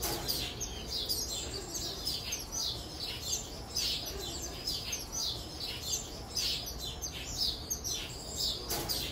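Young Eastern Phoebes calling over one another, a flock's chorus of short, high, down-slurred chirps several times a second: begging calls while they are hand-fed from tweezers.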